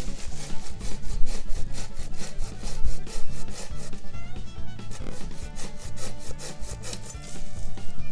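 Hand saw cutting through wood in quick, even back-and-forth strokes, with a short pause about halfway.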